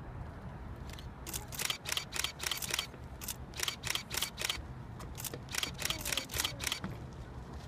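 A camera shutter firing in quick clusters of clicks, about three a second, over a low steady rumble.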